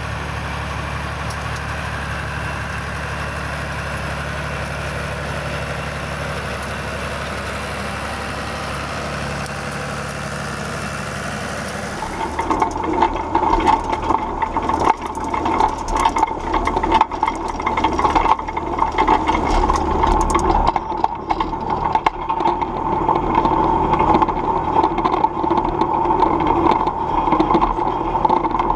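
John Deere 3050 tractor's diesel engine running steadily while it pulls a rotary rake. About twelve seconds in, the sound changes abruptly to the louder rattle of the Claas rotary rake's spinning tine arms over the tractor, with a steady whine and many sharp clicks.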